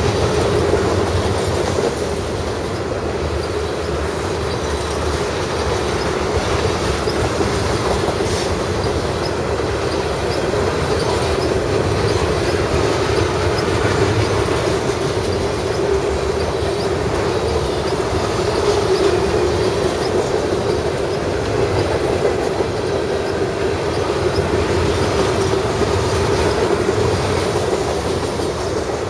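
Loaded crude-oil tank cars of a freight train rolling past steadily, their wheels clattering over the rail joints, with a steady mid-pitched whine from the wheels running under the rumble.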